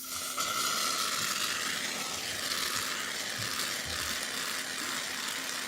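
Aerosol can of shaving cream spraying foam into a bowl: a steady hiss that starts abruptly and cuts off suddenly near the end.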